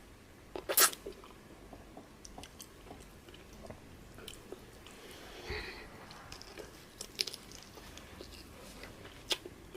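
A person eating fufu and peanut soup close to the microphone: quiet chewing and wet mouth smacks, with scattered clicks. The loudest is a sharp smack about a second in.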